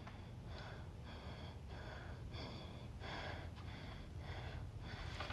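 A boy's faint, uneven breathing: short breaths about twice a second, like quiet crying held back.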